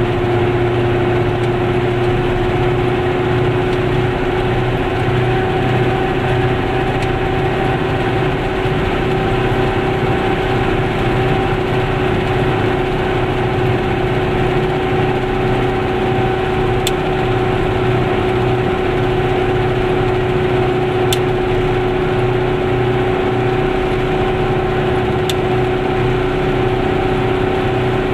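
A Goggomobil's air-cooled two-stroke twin engine droning at a steady cruising speed, heard from inside the cabin, over the noise of tyres on a wet road.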